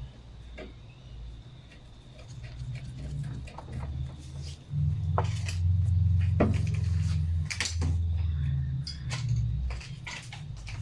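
Scattered small clicks and taps of parts and tools being handled while a throttle cable is fitted to a lawnmower, over a low rumble that swells about halfway through.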